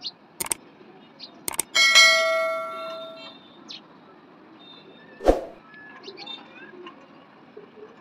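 Subscribe-button sound effect: a few quick mouse clicks, then a notification bell ringing and dying away over about a second and a half. A single sharp thump about five seconds in.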